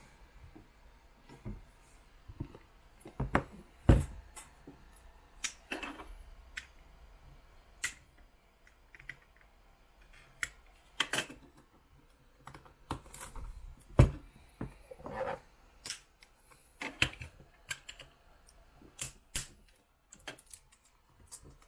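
A black trading-card presentation box being handled on a table: irregular taps, clicks and knocks as it is moved and its lid is worked, with two louder thumps about four and fourteen seconds in.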